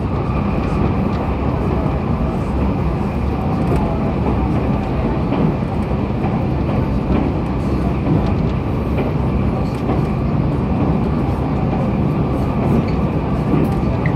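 Running noise heard inside a JR Kyushu 811 series renewed electric train, motor car KuMoHa 810-7609, cruising at speed. A steady rumble of wheels on rail carries a faint steady high tone and a few light clicks.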